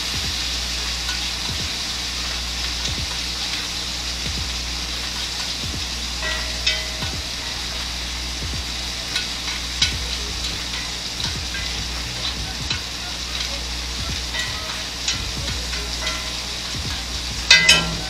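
Steak frying in a pan in butter and oil, a steady sizzle with scattered pops and spatters. A few sharp clinks, the loudest cluster near the end.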